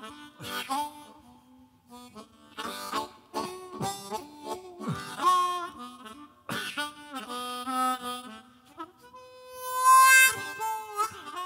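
Unaccompanied harmonica solo played into a microphone: short phrases of notes broken by brief gaps, then a long held higher note near the end, the loudest part.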